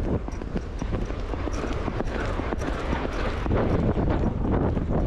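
A horse's hoofbeats as it is ridden on the beach, with wind buffeting the microphone.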